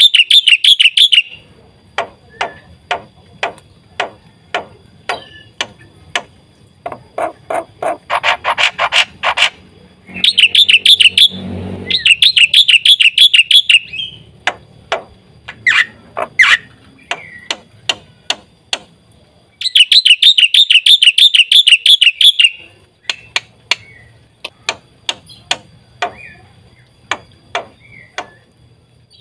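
Black-winged myna (jalak putih) in full song: several bursts of loud, rapid warbling trills, with runs of sharp clicking notes between them, over a faint low hum.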